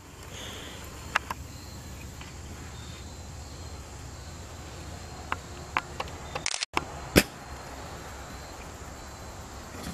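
Outdoor background of steady insect chirring, with a few faint clicks and one sharper knock a little past the middle.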